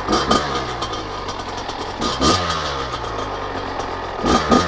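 Kawasaki KX100's single-cylinder two-stroke engine, its top end freshly rebuilt, running at idle just after starting, blipped up three times and falling back each time.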